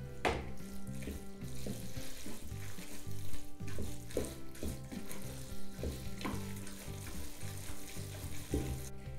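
Wooden spoon stirring thick, cheesy macaroni in a Ninja Foodi's inner pot: irregular wet, squelching strokes with the spoon scraping the pot, under steady background music.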